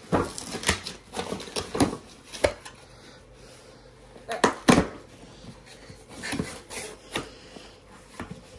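Cardboard shipping box being torn open by hand, its flaps pulled back, and plastic packaging inside handled and crinkled: irregular scraping, tearing and crackling, loudest about two and a half and four and a half seconds in.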